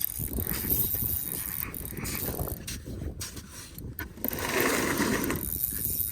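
Ice-fishing reel working with a mechanical ratcheting while a hooked fish is fought in through the ice, louder for a moment about two-thirds of the way through.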